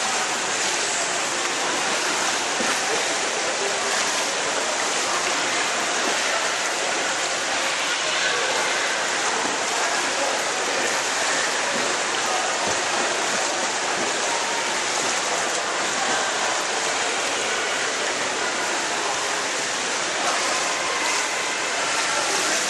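Steady rushing and splashing of water in an indoor swimming pool, an even wash of noise with no distinct events.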